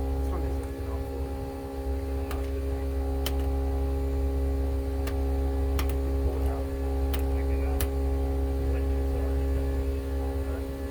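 A steady mechanical or electrical hum with several fixed tones, and a handful of sharp clicks scattered through it.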